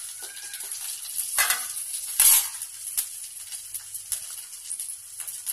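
Eggplant and dried red chillies sizzling in hot oil in a kadhai while a metal spoon stirs them. Steady frying hiss with two louder surges about one and a half and two and a half seconds in, and a few light clicks.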